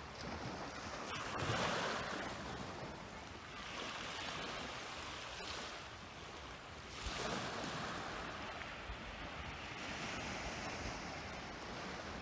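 Small waves washing gently onto a pebble shore on calm water, the wash swelling and fading, loudest about a second and a half in and again around seven seconds.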